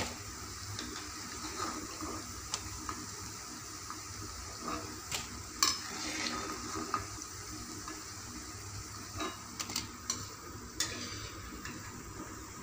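Pakodas frying in hot oil in a kadai, a steady sizzle, while a steel slotted spoon scrapes and clinks against the pan as the fritters are scooped out. The sharpest clinks come right at the start and about five and a half seconds in, with a cluster more near the end.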